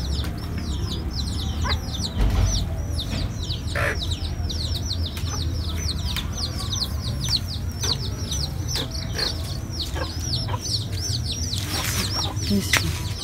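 Chicks peeping without pause: a steady run of short, high, falling peeps, about three a second, with a few soft knocks and rustles in between.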